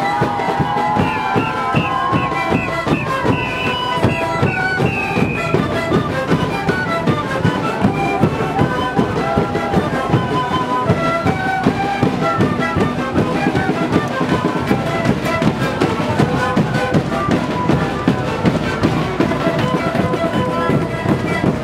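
Live Andean sikuri music: many siku panpipes play a tune together over steady beating of large bass drums and snare drums.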